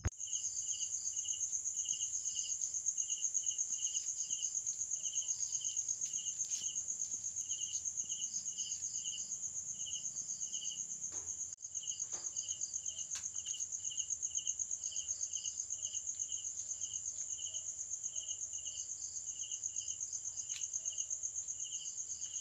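Night crickets: a steady high trill, with another insect chirping in regular pulses about twice a second. The sound dips briefly a little past halfway through.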